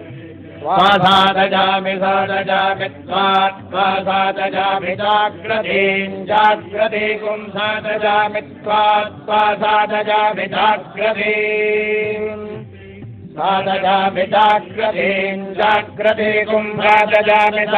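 Vedic mantras being chanted, phrase after phrase with a short break about two-thirds of the way through, over a steady low drone.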